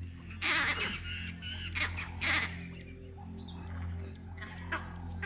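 Vervet monkey alarm calls: harsh chattering barks in a few bursts, the loudest about half a second in and again around two seconds in, with fainter ones later.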